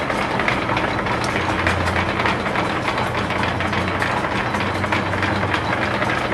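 Antique Champion post drill press running under line-shaft power on its first run, its gears, flat belt and pulleys clattering steadily with rapid fine ticking over a low hum.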